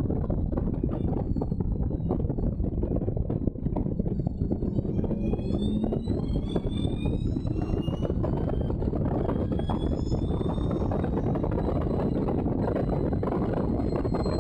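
Allard J2's V8 at racing speed, heard from the open cockpit under heavy wind noise on the microphone. After a brief dip about three and a half seconds in, the engine's pitch rises for several seconds as the car accelerates, then holds steady at speed.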